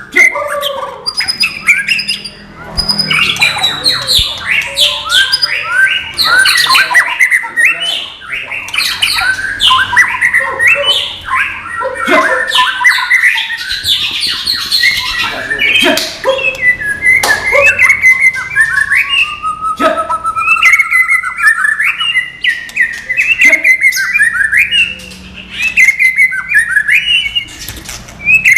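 White-rumped shama (murai batu) singing a long, unbroken, varied song of rapid whistled and sweeping phrases mixed with harsh notes. It is the non-bubbling type of murai batu song, without gelembung notes.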